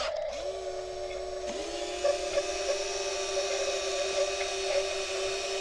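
Small electric motor of a toy RC wheel loader whining as it raises the bucket arm. The pitch rises quickly as the motor starts, again about a second and a half in, then holds steady.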